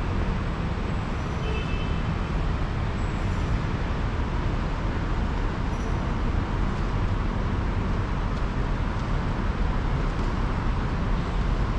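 Steady road-vehicle noise: an even low rumble with a hiss above it, unchanging throughout.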